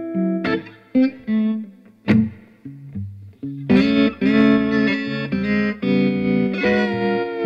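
Electric guitar played through an amplifier in a blues instrumental passage: a few separate picked notes with short pauses, then full chords played rhythmically from about four seconds in.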